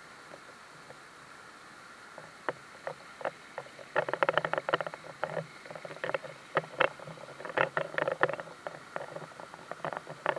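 Mountain stream water flowing and splashing over rocks: a steady rush with quick irregular splashes, sparse at first and coming thick from about four seconds in.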